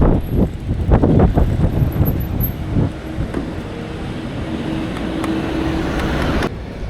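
Road vehicle noise: irregular rumbles and knocks for about the first three seconds, then a steadier hum with a faint held tone.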